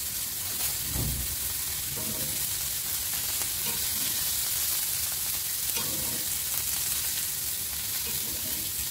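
Chicken tikka skewer sizzling steadily in olive oil on a hot, heavy dosa griddle as the oil is spooned over it, with a few faint knocks.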